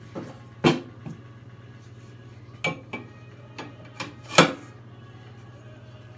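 Metal clanks and knocks from a black metal mounting pole and its bracket being handled: about eight sharp knocks, the loudest under a second in and about four and a half seconds in, over a steady low hum.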